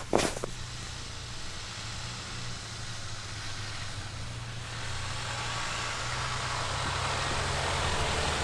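Pickup truck driving, a steady low engine hum under a hiss of tyres on snow that grows gradually louder, with a couple of clicks just at the start.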